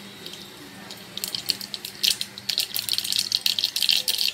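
Mustard seeds sizzling in hot oil for a tempering (phodni), starting to crackle and pop about a second in, the pops coming thicker and faster toward the end as the oil is hot enough for the seeds to splutter.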